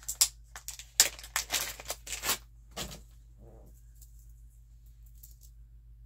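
A strand of frosted beads being picked up and handled: a quick run of rattling clicks and rustles over about the first three seconds, then only faint handling.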